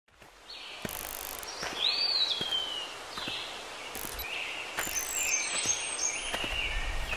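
Birds chirping and whistling, one call rising and then sliding slowly down, over footsteps on a dirt trail about once a second. The sound fades in at the start.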